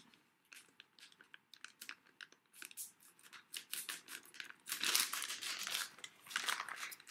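Small clear plastic bag of spare earphone tips crinkling as it is handled, in scattered rustles that grow louder from about five seconds in.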